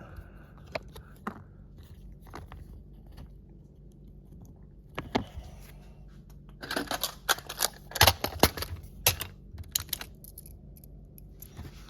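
Small clicks and scrapes of fingers and a tool working at an opened key fob's plastic case and CR2032 coin battery, trying to get the battery out. Scattered single clicks at first, then a busy run of clicks and scraping past the middle.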